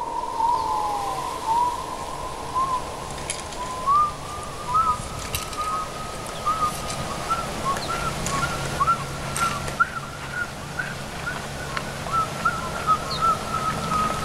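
Sound-design soundtrack: a steady high whistle-like tone with many short bird-like chirps rising and falling around it, a low hum swelling from about halfway, and a few sharp clicks.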